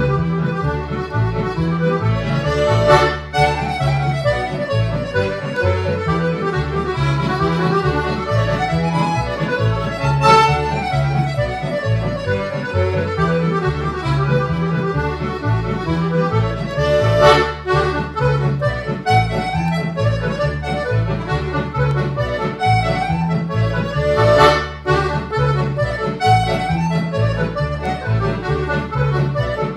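Piano accordion played solo: a melody on the treble keyboard over a steady, repeating bass-and-chord accompaniment from the left-hand buttons.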